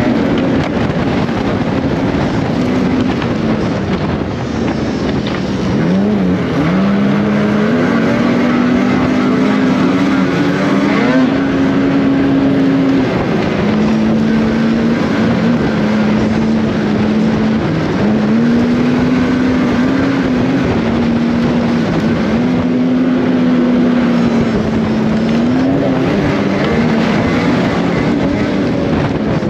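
Snowmobile engine running hard on a trail. Its pitch drops and climbs back several times as the throttle is eased and reapplied, over a steady rush of track and wind noise.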